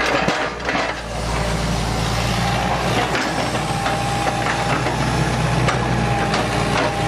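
Hitachi EX100 excavator's diesel engine running steadily under working load as the boom and grab move, with a thin steady whine and a few short knocks and clanks from the grab and the material it handles.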